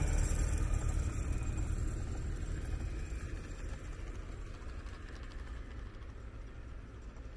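A passing motor vehicle's engine dying away steadily as it drives off.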